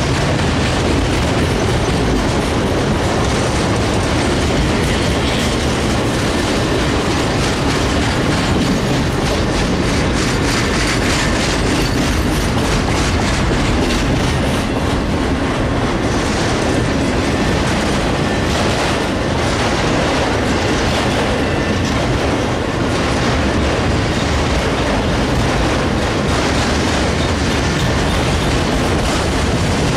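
Autorack freight cars rolling past at close range: a steady, loud rumble of steel wheels on rail with a continual clickety-clack of wheels over rail joints.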